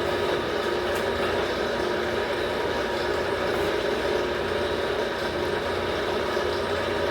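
Motor-driven shop machine running steadily with an even, unbroken hum, most likely the powered rolls of a tyre bender forming the steel tyre.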